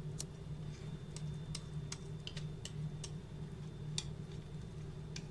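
Sharp, irregular clicks of a metal whisk tapping and scraping against the glass baking dish and mixing bowl as cake batter is scraped out, the loudest about four seconds in. A steady low hum lies underneath.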